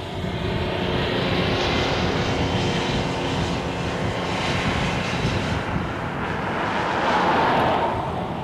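A steady engine drone with a faint hum in it, swelling louder near the end.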